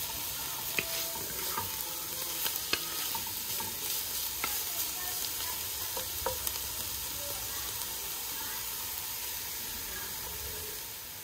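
Onions, garlic, wiri pepper and thyme sizzling in oil in an enamelled cast-iron pot, with a wooden spoon stirring and clicking against the pot. The stirring stops about two-thirds of the way through, leaving a steady sizzle.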